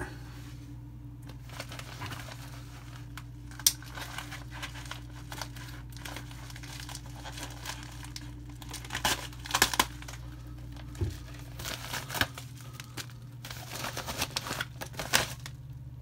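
Paper wrapping being unwrapped and crinkled by hand, in scattered short spells of rustling and tearing, with one sharp click about three and a half seconds in. A steady low hum runs underneath.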